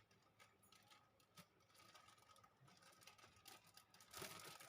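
Faint rustling and light taps of a pack of colour paper being handled, with a louder rustle near the end.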